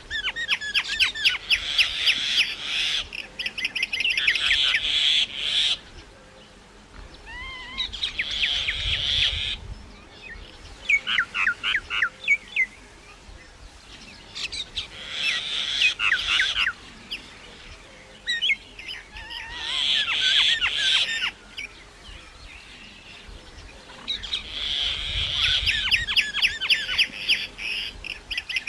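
Myna calling in repeated bouts of rapid chattering whistles and squawks, each bout lasting a few seconds with short pauses between.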